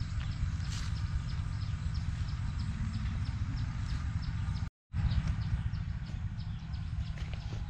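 Steady low rumble of wind buffeting the microphone, with a regular high ticking of about three ticks a second. The sound cuts out for a moment a little past halfway.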